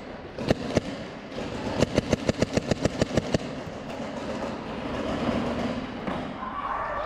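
Paintball markers firing: two shots, then a rapid burst of about a dozen at about seven shots a second. After the burst, a rising rustle and scuffing of movement and handling.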